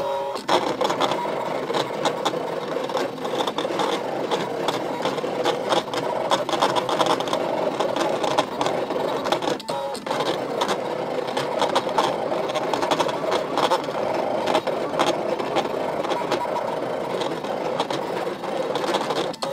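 Brother ScanNCut cutting machine running a cut: its motors whirring as the blade carriage and mat move, with a dense stream of clicks, briefly dropping about ten seconds in.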